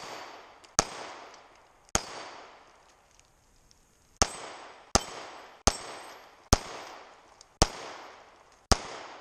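An M&P Shield 2.0 9mm pistol firing eight shots, about one a second, with a pause of about two seconds after the second shot. Each shot is followed by a long, fading echo.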